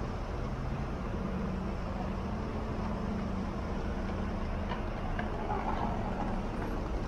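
City street traffic noise with the steady low hum of a vehicle engine running close by.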